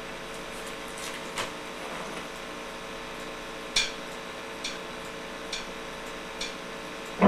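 Steady hum and hiss from an electric guitar amplifier with a few light clicks. Then come four evenly spaced ticks just under a second apart, counting in the beat of the backing track.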